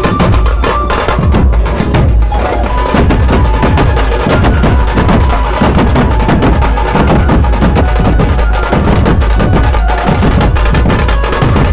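A dhol drum troupe playing a loud, fast, unbroken rhythm. Stick strokes on waist-slung barrel drums and on a large frame-mounted drum.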